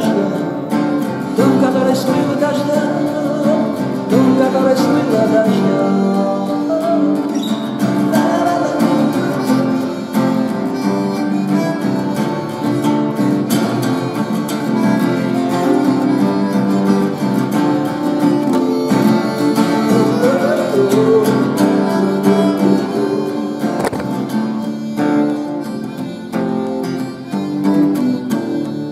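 A live song played on acoustic guitar, with a melody line gliding over the strummed accompaniment.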